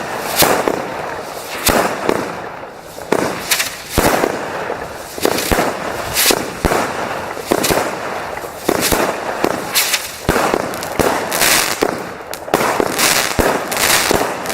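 Fireworks going off: a string of sharp bangs at irregular spacing, about two or three a second, over continuous crackling.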